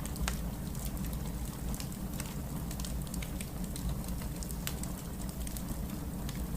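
Steady rain with a low rumble, dotted with scattered sharp crackles from a wood fire in a fireplace.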